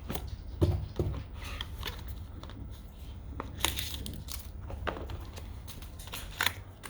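Smartphone retail box and its contents being handled: scattered knocks, rustles and crinkles of cardboard and packing, over a low steady hum.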